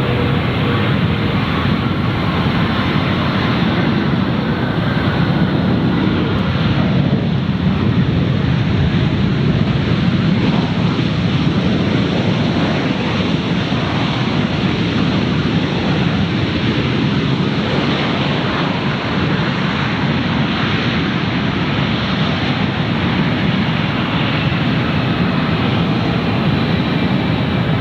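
Jet airliner engines running, a loud, steady rushing noise with a faint high whine over it.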